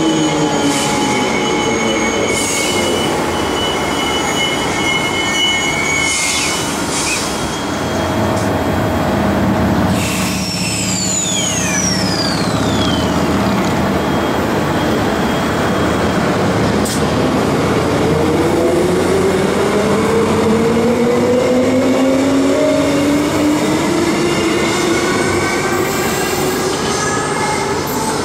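Transperth A-series electric multiple-unit trains running through the station over a continuous rumble of wheels on rail. Whining tones fall near the start. A high squeal glides down around the middle, and a rising whine builds over the last ten seconds.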